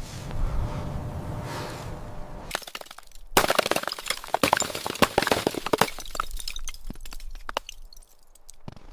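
A low rumbling noise, then a dense run of sharp cracking and breaking sounds starting a couple of seconds in, lasting about five seconds before thinning out.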